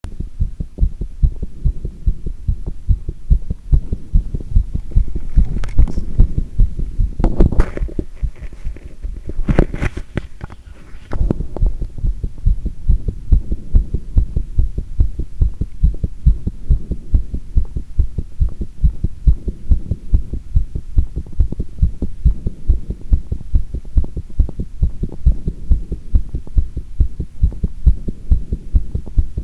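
A person's heart sounds, picked up by a microphone pressed hard against the chest just after squats, beating in a quick, even rhythm of low thuds. A few louder scraping noises cut in between about five and eleven seconds in.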